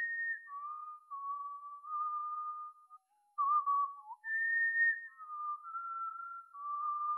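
A person whistling a slow melody solo, long held pure notes with small slides between them. There is a short break about three seconds in.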